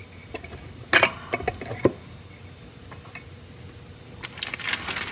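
Handling noise: a few sharp clicks and knocks of small hard objects being picked up or set down, then a stretch of rustling near the end.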